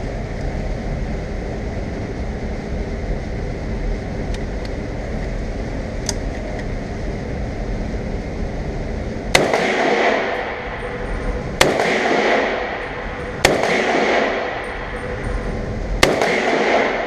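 MAK-90 semi-automatic AK-pattern rifle in 7.62×39 firing four single shots, about two seconds apart, each followed by a long echoing decay. A steady low rumble runs under the first half before the shots begin.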